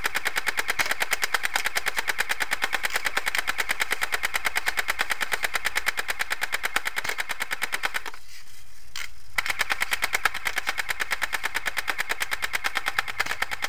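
Airsoft gun firing on full auto: a fast, even stream of pellet shots at roughly ten a second, stopping about eight seconds in for a little over a second, then firing again.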